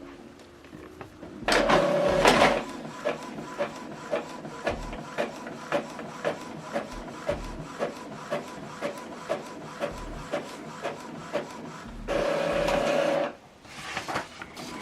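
Epson EcoTank ET-2860 inkjet printer printing a test page. A loud motor whir comes about two seconds in, then a steady run of light clicks about three a second, then another loud whir near the end.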